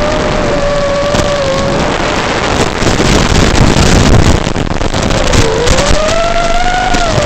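FPV quadcopter's brushless motors whining over heavy hiss, the pitch wandering up and down with throttle. About two seconds in the whine fades under a louder, rough noise. It comes back near the five-second mark, dips and then climbs.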